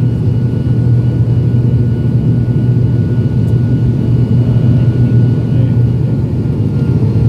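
Airliner engines running at a steady pitch, heard from inside the passenger cabin: a loud low drone with a faint higher whine over it.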